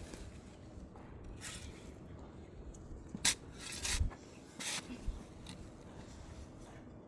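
Digging in garden soil: a few short scraping strikes of a tool cutting into the dirt, spread over several seconds.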